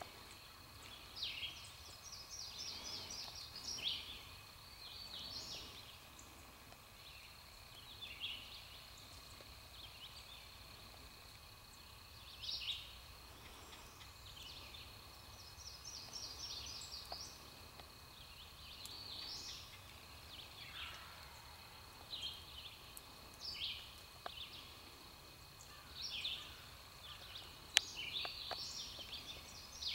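Songbirds singing, short high chirping phrases every second or two, over a faint steady high-pitched whine.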